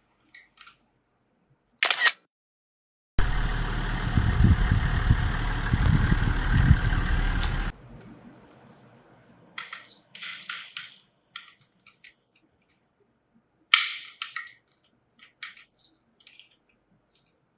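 A plastic toy car's wheels rolling across a surface for about four and a half seconds, a steady rumble that cuts off suddenly, with sharp plastic clicks and taps from handling the toy before and after.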